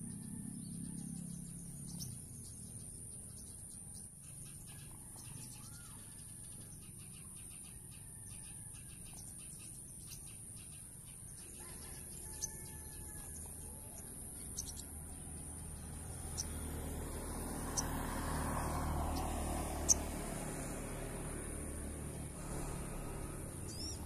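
Small birds chirping faintly in the trees, short curved notes scattered through the first half, over a thin steady high tone. In the second half a low rumble like passing traffic swells and fades, with a few sharp ticks, the loudest about twenty seconds in.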